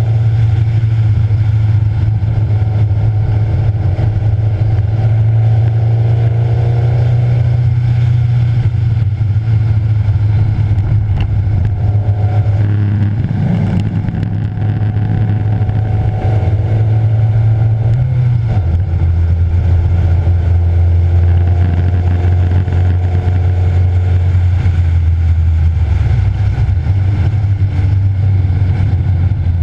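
Race-track car engine running hard at speed, heard from an onboard camera with road and wind noise, its pitch rising and falling through the corners. About 18 seconds in, the engine's low note steps down to a deeper pitch.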